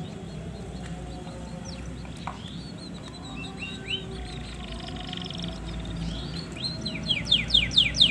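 Male domestic canary singing: scattered short chirps and a quick trill, then near the end a loud run of fast downward-sweeping notes, about four a second.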